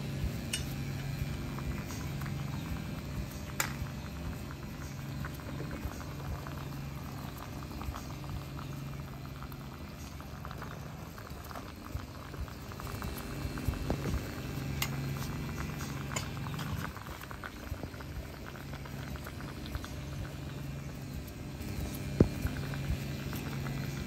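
Water boiling in a small pan of leafy greens, with a steady bubbling crackle and scattered pops; the pan is heated by current from a rewired microwave transformer. A low hum comes and goes, and a few sharper clicks sound near the end.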